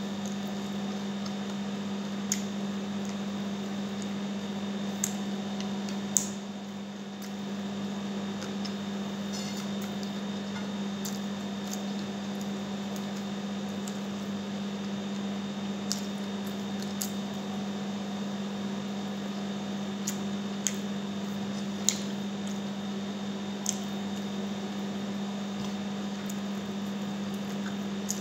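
Close-up eating sounds of honey-garlic chicken wings eaten by hand: chewing and squishy mouth noises, with scattered sharp smacks and clicks, over a steady low hum.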